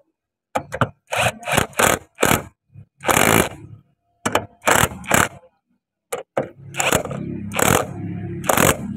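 Cordless impact driver with a socket, run in a string of about fifteen short bursts as it drives the bolts of the hydraulic return filter cover on a Komatsu PC45MR-3. A low steady hum joins in during the last two seconds.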